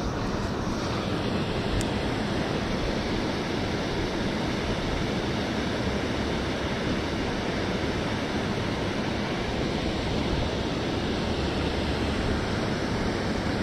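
Steady rushing of water pouring over a concrete spillway weir.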